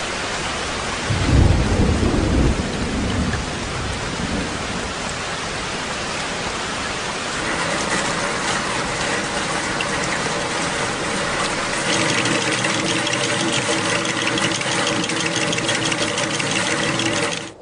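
Heavy rain falling, with a low rumble of thunder about a second in. Further on the rain grows louder and a few steady tones run beneath it, and then it cuts off suddenly.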